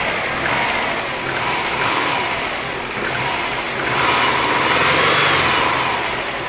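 Subaru WRX turbocharged flat-four engine, with a freshly rebuilt short block, idling and being revved lightly, its pitch rising and falling, with the biggest rev about four seconds in. The owner asks whether the noise it makes is piston slap.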